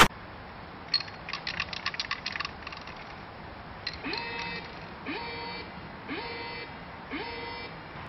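Anti-graffiti alarm sounding from small speakers: four short rising whoops about a second apart, set off by spray painting on the protected surface. Before it, a quick run of clicks.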